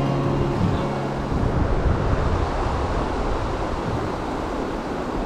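Steady rushing of river water. The last held notes of acoustic guitar music fade out in the first second or so.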